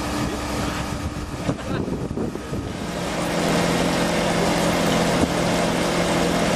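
An engine running steadily, growing louder about three seconds in with a steady hum.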